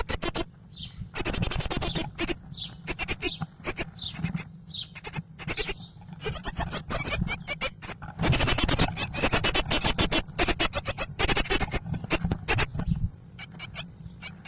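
Great tit nestlings in the nest box giving a rapid, rasping begging chorus, with a few short falling chirps in the first few seconds. The begging swells loudest about eight seconds in, when a parent arrives at the nest hole with food, then eases off near the end.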